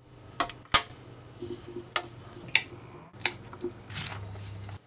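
A series of about six sharp, irregularly spaced clicks over a low steady hum.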